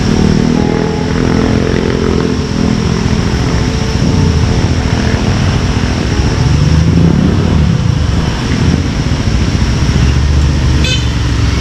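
Engines of several motor scooters running as they come round a bend and pull up, their pitch shifting as they slow and settle. A short horn toot sounds near the end.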